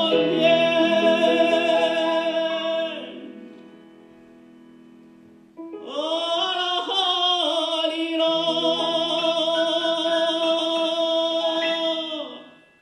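A male solo voice sings a Chinese folk song in an operatic style, with accompaniment. A held note ends about three seconds in, leaving a short quiet gap. About halfway through he starts the refrain 'a lang he ni na' as one long sustained phrase with vibrato, which ends near the end.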